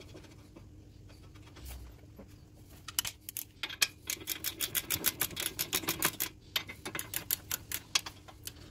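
Socket ratchet clicking rapidly in a run of even ticks as a brake caliper bracket bolt is wound in, starting about three seconds in and going on for about five seconds.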